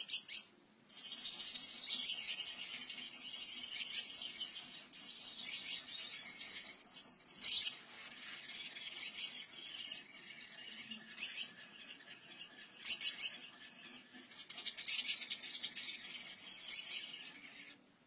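Gouldian finch song: a continuous soft, buzzy, hissing warble, punctuated every second or two by short, sharp high calls.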